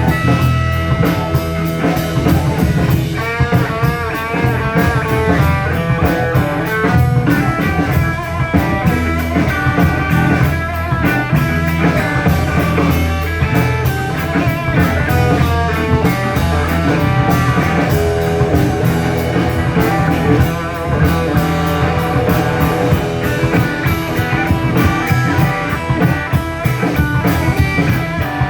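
Rock band playing live, guitar over a drum kit, with quick runs of notes in the guitar part.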